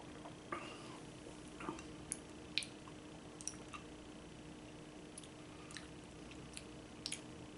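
Faint sipping and mouth sounds of someone tasting a beer: a couple of short sips in the first two seconds, then scattered small clicks and ticks.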